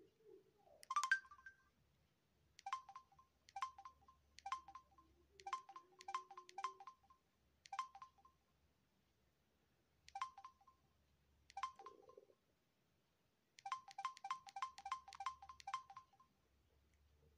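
Samsung SGH-Z400 mobile phone's keypad tones: short electronic beeps, one per press, as the navigation keys scroll through the menus. They come singly at first, with a stronger beep about a second in, then a quick run of about ten near the end as the keys are tapped fast.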